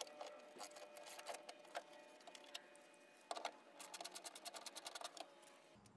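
Faint clicking of a ratchet socket wrench with a 10 mm socket backing out the screws that hold a factory door speaker. Scattered single clicks, then a quick even run of clicks about four seconds in.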